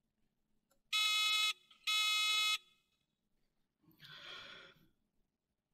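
Two steady electronic beeps, each about half a second long, from the competition's timing signal, sounding as the signal tower's red lamp comes on. A faint intake of breath follows a few seconds later.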